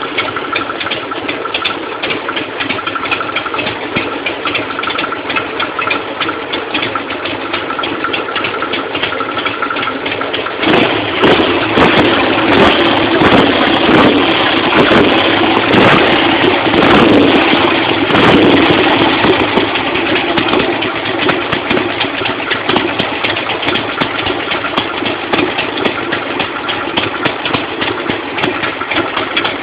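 Harley-Davidson Sportster 883's air-cooled V-twin engine running at idle during a tune-up. About ten seconds in, it gets louder and rougher for around ten seconds, then settles back to a steady idle.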